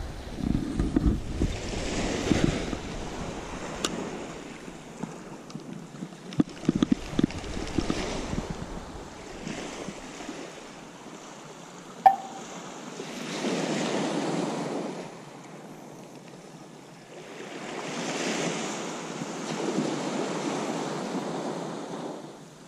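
Small waves breaking and washing up the beach, the surf swelling and fading a few times. Wind rumbles on the microphone for the first few seconds.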